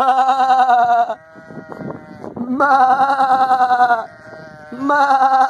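Sheep bleating: three long, loud, quavering bleats, the third starting near the end, with fainter calls between them.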